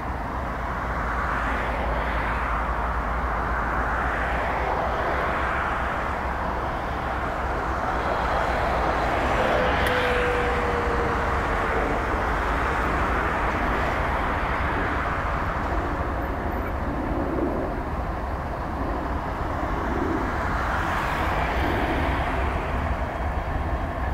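A consist of freight diesel-electric locomotives running as they roll slowly past: a steady engine drone that swells and fades, loudest about ten seconds in.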